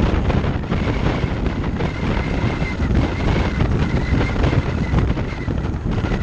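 Wind rushing over a GoPro Hero Session mounted on a moving car's windshield, a loud steady buffeting on the microphone. A thin, high whistle wavers in and out through the middle, caused by the camera sitting too close to the upper edge of the windshield.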